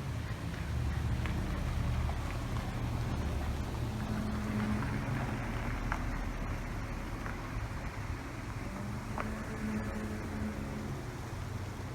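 A low, steady rumble, presented as a mysterious sound in the sky. A faint drone comes in over it about four seconds in and again near nine seconds. A few short, thin high chirps are scattered through it.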